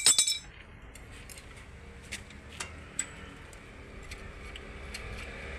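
A quick cluster of sharp metallic clinks with a brief ring at the start, then a few faint scattered ticks and clicks, as small metal parts on a diesel weeder engine are handled and fitted by hand.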